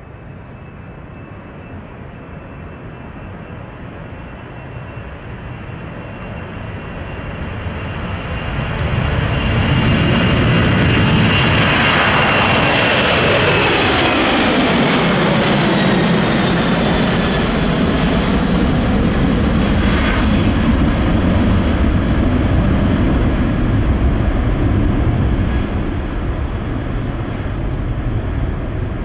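Boeing 747's four jet engines grow louder as the jumbo approaches, then pass close by with a high whine that drops in pitch. A deep steady roar follows as it moves on.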